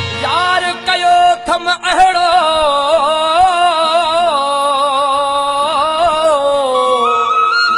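Sindhi folk music from a small group of young performers: a long, unbroken high melody that slides up and down, with a few drum strokes in the first two seconds.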